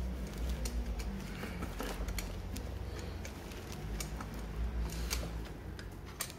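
Scattered light clicks and taps from hands and tools handling parts on a scooter's open cylinder head, over a low steady hum.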